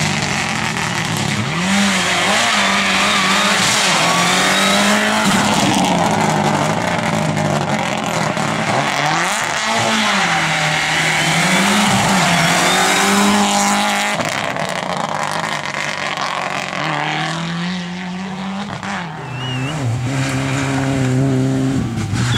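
Rally car engine driven hard, its revs rising and dropping again and again, passing close by about ten seconds in. Later the engine note settles lower and steadier, with brief tyre squeals near the end.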